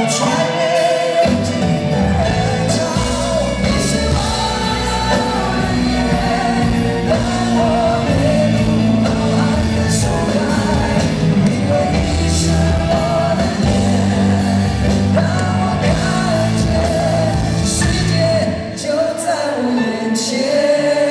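Live band performing a pop-rock ballad in a large arena: drums, bass, electric guitars and keyboards under male singing, with a short dip in level near the end.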